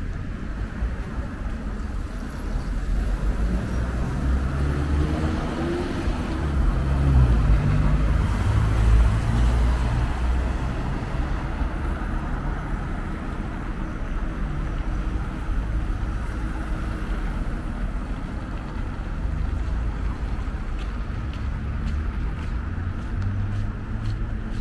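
City street traffic: cars driving by as a steady low rumble, swelling loudest as a vehicle passes close about a third of the way through.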